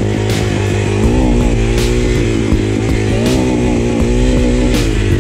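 Trail dirt bike engine revving up and down repeatedly, the pitch rising and falling with the throttle, over a steady low hum.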